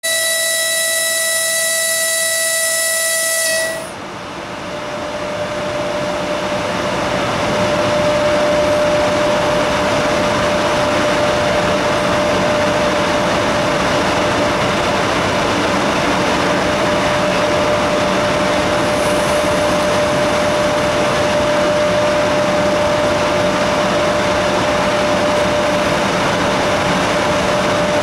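EP1M electric locomotive sounding one long horn blast that cuts off sharply after nearly four seconds. Then comes a loud rushing noise from the locomotive with a thin steady whine, building for about four seconds and then holding steady.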